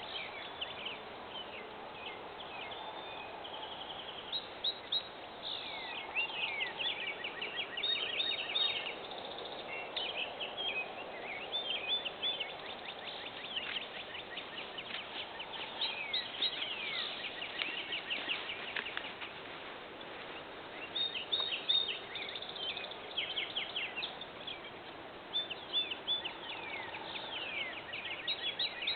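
Birds chirping in a field: many short, high chirps and quick falling notes overlapping into a dense, continuous chorus over a steady background hiss.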